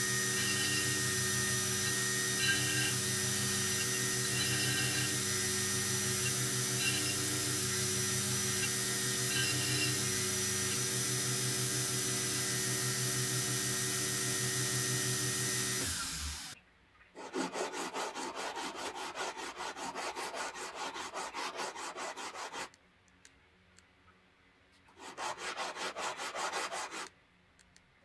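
Belt grinder running steadily, its motor hum under the hiss of the abrasive belt grinding facets on a steel hammer head. About two-thirds of the way through it cuts off, and the hammer head is rubbed back and forth by hand on a strip of sandpaper in quick strokes, in two bouts with a pause between.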